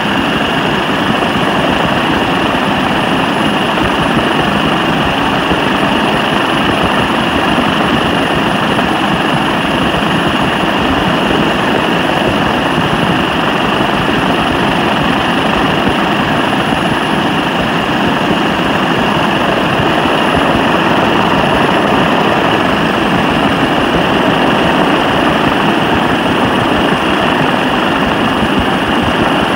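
Helicopter engine and rotor noise heard from on board the aircraft: a loud, steady drone with a constant whine on top, unchanging throughout.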